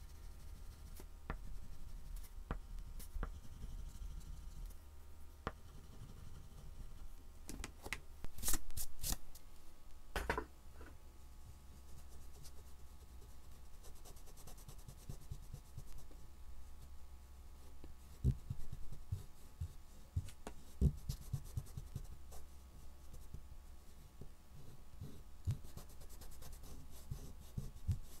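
Soft oil pastel stick scratching and rubbing across a painted MDF board, then fingertips rubbing the pastel to blend it, with a few sharper scrapes about a third of the way in and soft knocks in the second half.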